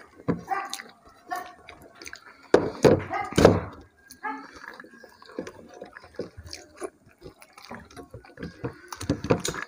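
Wet eating sounds: rice and fish curry squished by hand and chewed, a run of short moist clicks and smacks, loudest a few times around the middle.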